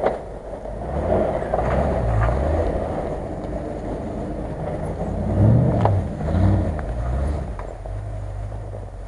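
A Land Rover Discovery's engine revving up and easing off twice, loudest about halfway through, as the 4x4 drives through snow ruts. Near the end a steadier engine note from another off-road 4x4 follows.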